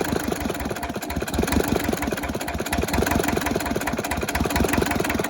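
Hinomoto E150 tractor's Toyosha diesel engine idling steadily, an even chugging of several beats a second. The idle is running a little low.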